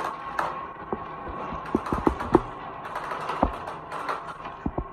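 Glass marbles rolling along the wavy groove of a wooden HABA slope board, clicking against the track and one another in irregular clatters, with a few heavier knocks about two seconds in and again near the end.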